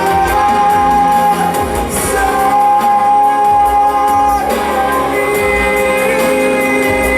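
Music with singing: long held sung notes over instrumental backing.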